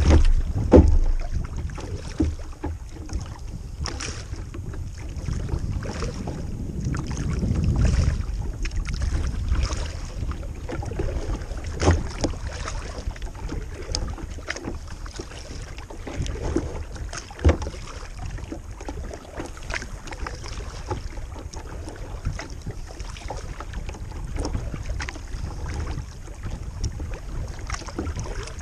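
Double-bladed kayak paddle stroking and splashing through the water, with wind rumbling on the microphone. Now and then there is a sharp knock, the loudest near the start and twice more later.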